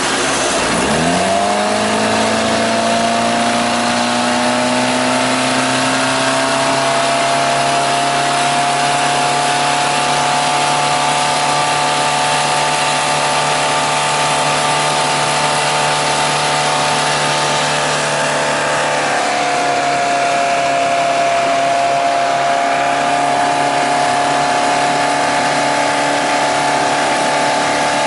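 Cheetah 166 boat's new Mercruiser 140 hp sterndrive engine running under way. Its pitch drops sharply and climbs back about a second in, then holds steady at speed with a slight drop in pitch about two-thirds of the way through.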